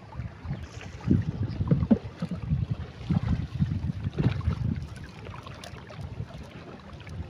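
Wind buffeting the microphone in irregular low gusts, heaviest over the first few seconds and easing after about five seconds.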